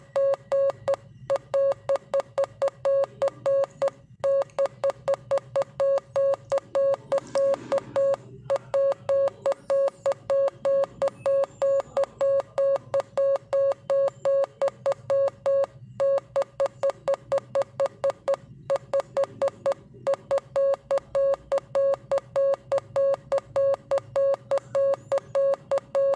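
Morse code sent as a single steady beep tone, keyed rapidly into short dots and longer dashes, with brief pauses between words. It stops at the very end.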